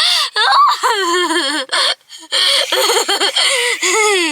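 A young girl laughing and giggling in two bouts, with a short break about two seconds in.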